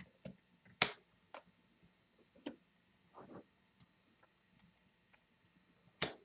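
Trading cards being set down and shuffled on a tabletop: a few sharp, separate taps, the loudest about a second in and near the end, with a brief rustle of cards sliding a little past the middle.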